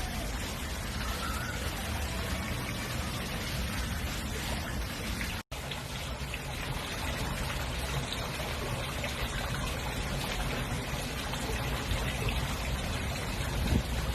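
Steady noise of running, trickling water, broken by a brief dropout about five and a half seconds in.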